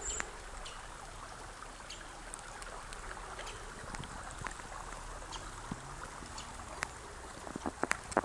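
Shallow woodland stream running over stones: a steady rushing babble. A few crisp footstep crunches in snow come near the end.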